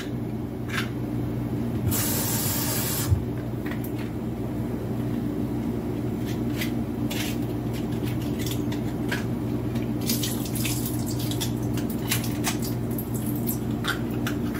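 Kitchen tap running over black beans in a strainer at the sink as they are rinsed, with a louder gush of water for about a second near the start and scattered light clicks and taps throughout.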